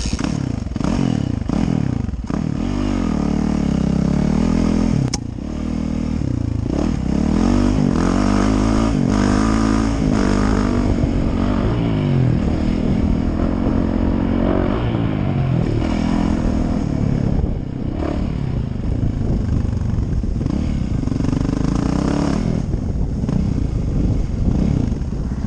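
Yamaha YZ450F four-stroke single-cylinder dirt bike engine ridden hard, its pitch climbing and dropping again and again with throttle and gear changes, with a couple of brief let-offs. Heard from a helmet-mounted camera, with the bike's rattle mixed in.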